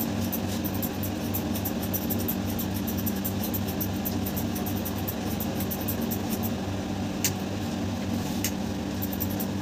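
Electric hair clipper running with a steady buzz, with many fine rapid clicks on top.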